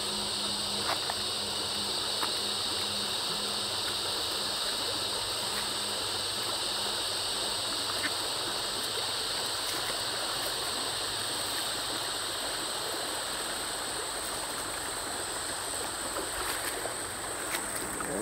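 Shallow creek running over gravel and stones: a steady rush of water, with a steady high-pitched whine over it.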